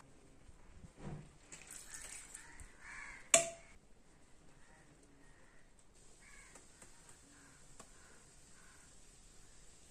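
A single sharp metallic clink about a third of the way in, a steel strainer knocking against a steel plate, over faint repeated harsh bird calls in the background.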